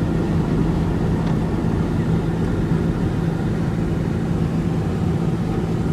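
Car running: a steady low engine and road rumble with a constant low hum.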